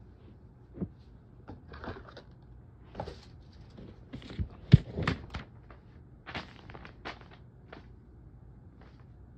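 Irregular knocks and clicks, with one loud thump about five seconds in.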